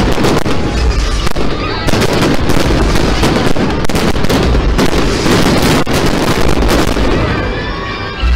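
Fireworks display going off: a dense, continuous run of bangs and crackling bursts, easing slightly near the end.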